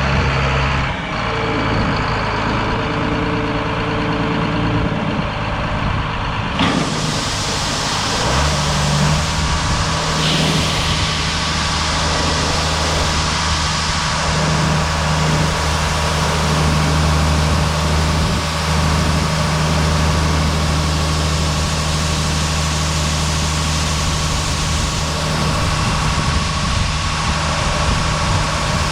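Tractor's diesel engine idling, with a sharp knock about seven seconds in. The engine then revs up and runs steadily at higher speed.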